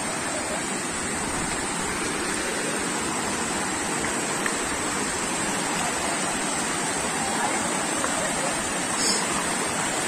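Shallow stream water rushing over rocks in a steady, even wash.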